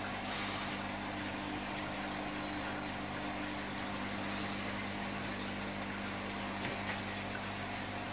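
Steady hum of an aquarium's filter and pump motors, with water bubbling and trickling as it returns from the overhead planter-box sumps into the tank.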